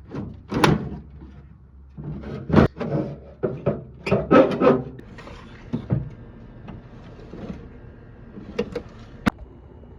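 Metal clattering and knocking, as of a steel toolbox's drawers being pulled open and shoved shut: irregular rattles and bangs for about five seconds, then lighter handling sounds and one sharp click near the end.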